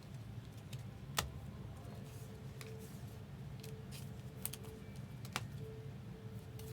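Trading-card packs and cards being handled: a few sharp clicks and snips, the loudest about a second in, over a low steady hum.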